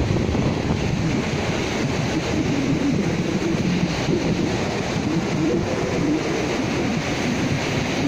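Baltic Sea surf close by: small waves breaking and washing up and back over a sandy beach as a steady noise with a low rumble.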